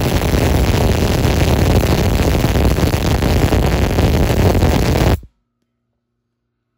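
MIG (GMAW) welding arc crackling steadily on structural steel, cutting off suddenly about five seconds in; a faint low hum remains after.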